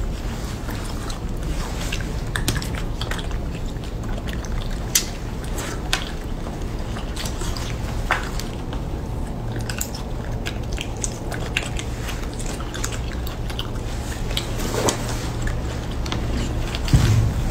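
Close, wet chewing and lip-smacking from mouths eating soft food: many small irregular clicks over a steady low hum, with a soft thump near the end.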